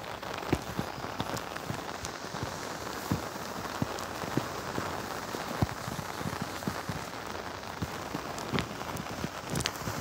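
Heavy rain falling: a steady hiss with many scattered sharp taps of individual drops striking nearby.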